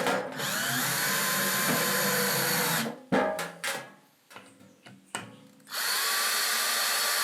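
Cordless drill driving screws into a pine 2x4, in two runs: one of nearly three seconds, then a shorter one near the end. The motor's whine rises as it spins up each time, and a few knocks from handling the wood fall between the runs.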